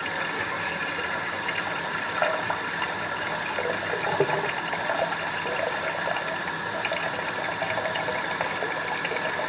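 Hot tap water running steadily into a cooking pot, with a few small knocks of the pot.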